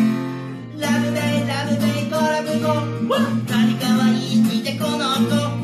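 Intro theme music: a strummed acoustic guitar chord rings out, then the full song comes in just under a second later, with a steady bass line and a voice singing over the guitar.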